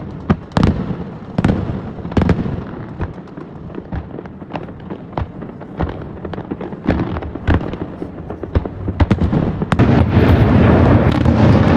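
Fireworks display: a quick, irregular run of shell bursts, sharp bangs a fraction of a second apart. About ten seconds in, the bangs thicken into a louder, continuous din.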